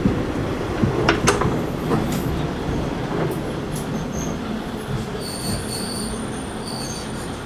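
Kiha 20 diesel railcar heard from inside the car while running: a steady rumble, with a couple of sharp clanks about a second in and a thin high wheel squeal through the second half.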